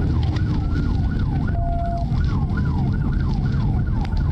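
Police car siren in yelp mode, rising and falling quickly about three times a second, over the loud engine and road noise of a cruiser at speed in a pursuit.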